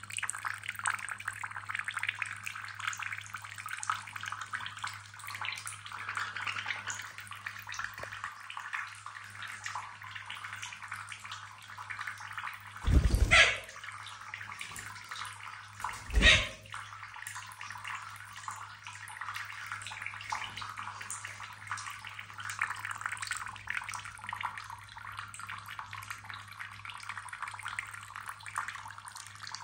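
Thin stream of tap water trickling and splashing into a bathroom sink as a blue monk parakeet bathes in it. A steady low hum runs underneath, and two loud bumps come about three seconds apart halfway through.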